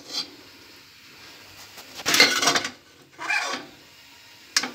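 Metal slotted spoon scraping against the inside of an aluminium pot while scooping out fried vegetables, in a few short scrapes, the loudest about two seconds in, with a light knock near the end.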